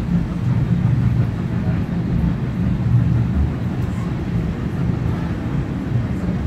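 Heritage train running along the track, heard from inside a passenger carriage hauled by steam locomotive 3526: a steady low rumble.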